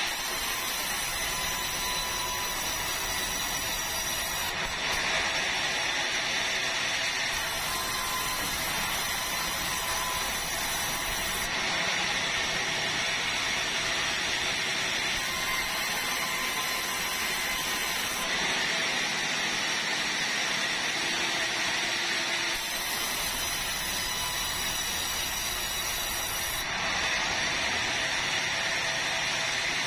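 Sawmill vertical band saw running steadily as red meranti timber is fed through the blade. About four times, for three or four seconds each, the sound changes as a cut passes through the wood.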